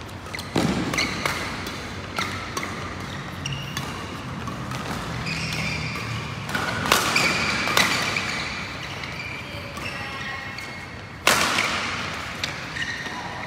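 Badminton rally: rackets striking the shuttlecock in a string of sharp cracks, the hardest hits about half a second in, near the middle and just past the eleven-second mark, each with a short echo, and brief squeaks of shoes on the court between them.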